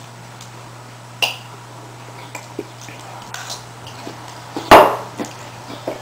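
Scattered light clicks and taps of an eating utensil against dishware, with one much louder short knock about three-quarters of the way through, over a faint steady low hum.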